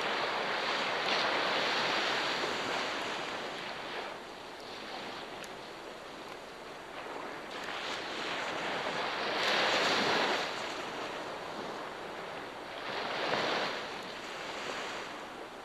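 Sea waves washing onto the shore, the surf swelling and ebbing in three surges.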